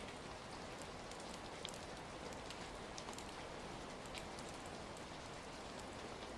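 Ambient recording of steady rain mixed with a crackling fire: an even hiss with scattered sharp little pops and ticks.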